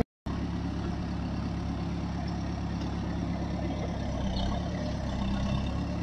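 Backhoe loader's diesel engine running steadily, with an even, unchanging drone.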